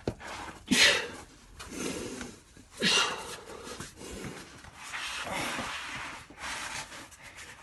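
A climber's hard breathing while squeezing through a tight sandstone chimney: irregular breaths and exhales, with two loud, sharp breaths, about a second in and about three seconds in.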